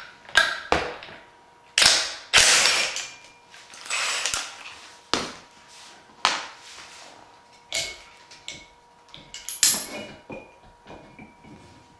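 Cordless impact driver hammering in short bursts on the bolt that holds the flywheel of a Wahoo Kickr Snap bike trainer, loosening it. Between and after the bursts come sharp clicks and knocks of the tool and parts being handled.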